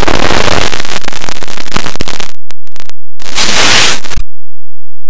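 Harsh, heavily distorted and clipped noise at full loudness, like blasted static, cutting out abruptly twice and flickering briefly in between.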